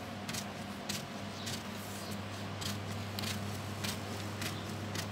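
Tailor's scissors cutting through paper pattern sheet in a steady run of snips, about one every half second, over a steady low hum.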